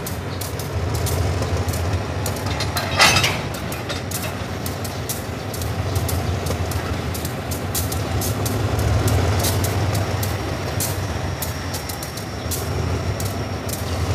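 Diesel locomotive engine running with a steady low rumble as the locomotive creeps slowly forward toward a container flatcar, with a brief sharp hiss about three seconds in and faint scattered clicks.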